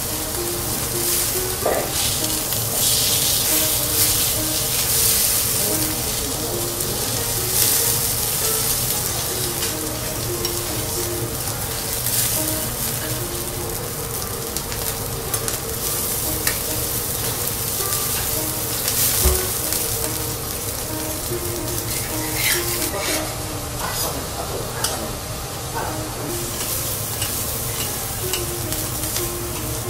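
Steak of Matsusaka wagyu beef sizzling on a hot teppanyaki steel griddle, a steady frying hiss. A few light sharp clicks come near the end.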